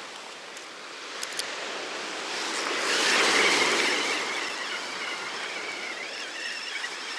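Sea surf washing onto a beach, one wave swelling to its loudest about three seconds in and then easing off, with a faint thin whine over the middle and a few light ticks early on.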